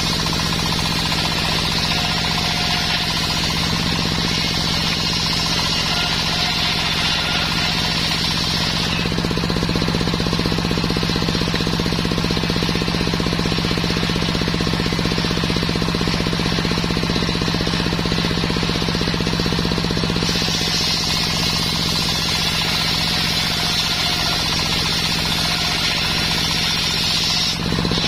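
Belt-driven bench circular saw ripping sengon wood, its engine running steadily underneath. A higher cutting noise is present for the first nine seconds, drops away, and returns from about twenty seconds in.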